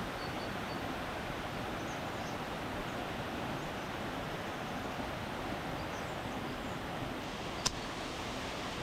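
Steady outdoor background noise in a forest, with a few faint high bird chirps and one sharp click near the end.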